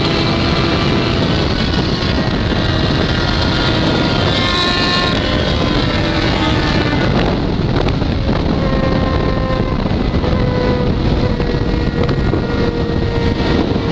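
Yamaha XJ6's straight-piped 600 cc inline-four engine running hard at high highway speed, its tone shifting a little in pitch, under heavy wind noise on the microphone.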